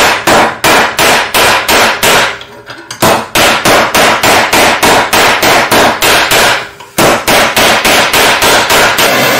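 Hammer blows on a metal wire laid on a steel bench block, flattening it, about three sharp strikes a second in three runs with two brief pauses.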